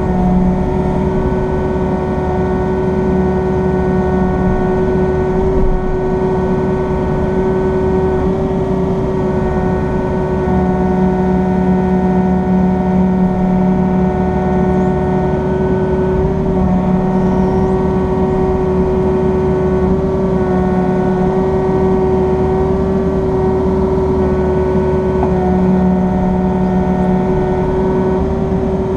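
Excavator's diesel engine and hydraulics running steadily, heard from inside the cab as the tilt-rotator grapple is worked, with a steady whine over the engine and a deeper hum that swells in for a few seconds at a time.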